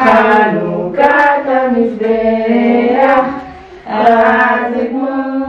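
A group of adults and children singing a song together, holding long notes in phrase after phrase, with a short breath between phrases a little under four seconds in.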